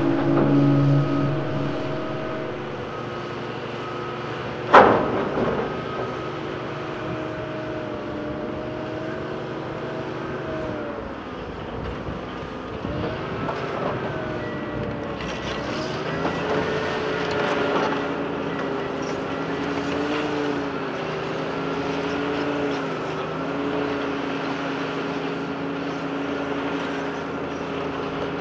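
Hitachi ZX350 crawler excavator's diesel engine and hydraulics working, the pitch rising and falling as it swings and lifts while loading rock into an articulated dump truck. Rock clatters into the truck's steel body, with one sharp bang about five seconds in.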